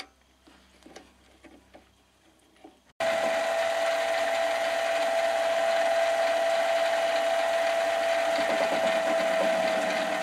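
A few faint clicks and taps from a collet being fitted into a mini lathe's spindle, then, about three seconds in, the mini lathe's motor comes on and runs steadily with a constant whine.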